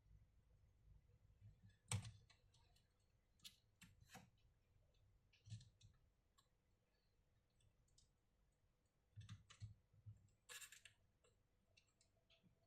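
Faint, scattered clicks and taps of small parts being handled while working on a laptop, the sharpest about two seconds in, with a short scraping rustle a little after ten seconds.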